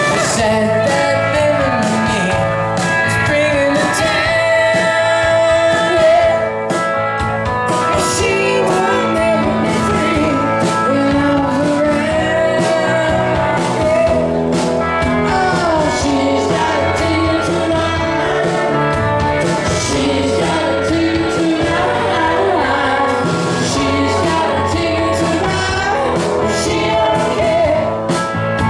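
Live band playing amplified music: electric guitars with a lead singer over a steady drum beat.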